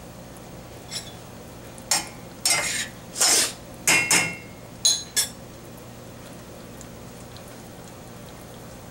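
A spoon scraping and clinking against a stainless steel saucepan while stirring onion and garlic in water. It comes as a string of short scrapes and knocks in the first half, one with a brief metallic ring, then stops.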